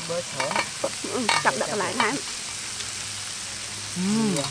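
Slurping and eating noodles with chopsticks from a small bowl, with several sharp wet slurps in the middle. A voice makes short pitched sounds between mouthfuls, without clear words.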